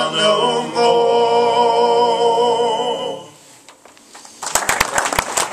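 Unaccompanied male voices singing in harmony, holding the final chord of a folk ballad that fades out about three seconds in. After a short pause, audience applause starts near the end.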